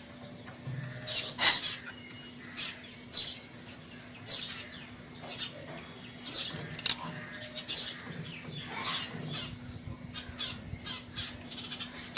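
Small birds chirping on and off, over a faint steady hum, with a few sharp clicks and a louder click near the end.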